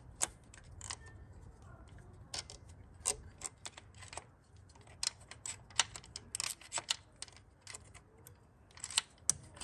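Irregular light metallic clicks and clinks as the fuel injector clamp on a VW 1.9 TDI pump-nozzle engine is wiggled out of its groove by hand, metal knocking lightly on metal.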